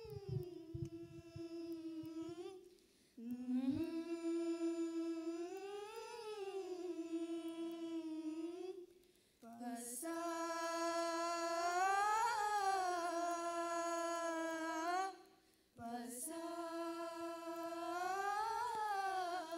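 A group of young women singing a prayer unaccompanied: long held notes in phrases of a few seconds, each swelling up in pitch in the middle and falling back, with three short breaks for breath.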